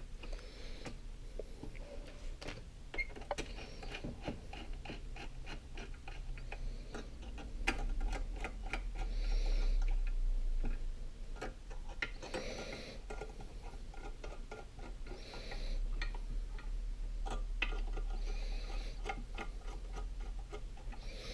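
Light clicks and ticks of small hand work as the end cap of a glass linear scale is fitted back on and its screws are tightened, over a faint steady low hum.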